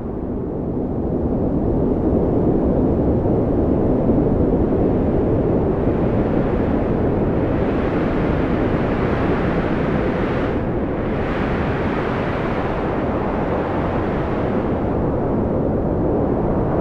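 Strong wind blowing in a steady roar, mostly low in pitch. It swells and brightens in the middle, with a brief lull in the hiss around the tenth or eleventh second, then settles back.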